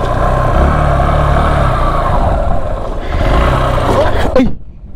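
Underbone motorcycle engine running under throttle, its note rising twice, then dropping away as the bike slows to a stop near the end.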